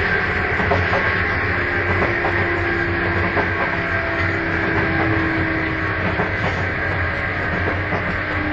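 Sotetsu 8000 series electric train heard from inside motor car MoHa 8107 while running, with the jet-engine-like abnormal whine this car is known for. A steady whine sits over a lower tone that slowly falls in pitch, with faint clicks from the rails.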